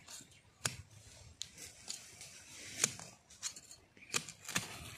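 A bamboo stick digging into soil and dry leaf litter at the base of a bamboo shoot: irregular sharp scrapes and knocks, about eight in all, with rustling between them.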